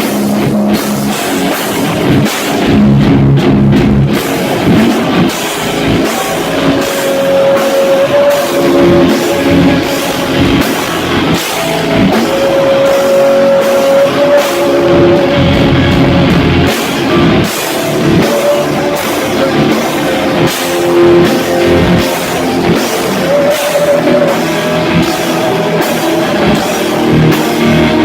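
Rock band playing: drum kit keeping a steady beat under guitar, with several long held notes.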